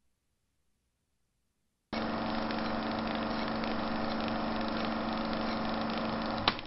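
A small engine running steadily, starting suddenly about two seconds in, then a sharp click near the end and a short fade-out.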